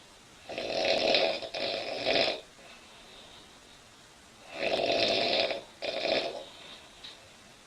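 A woman snoring loudly in her sleep: two snores about four seconds apart, each drawn in two quick pulls with a short break between them.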